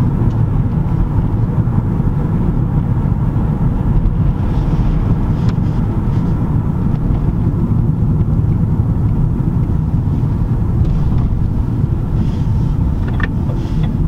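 Steady low road and engine noise inside the cabin of a moving car.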